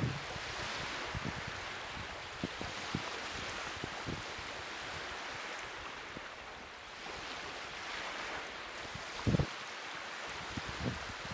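Wind over choppy open water: a steady rushing hiss, with several low bumps of wind buffeting the microphone, the strongest about nine seconds in.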